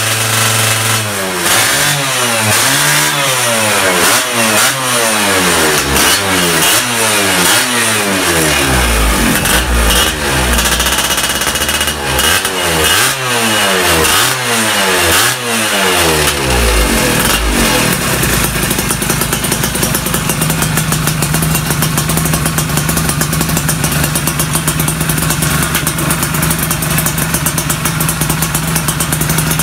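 Yamaha F1ZR two-stroke motorcycle engine running through an AHM plug-and-play aftermarket exhaust, revved repeatedly in quick rising and falling blips. After about 17 seconds it settles to a steady idle.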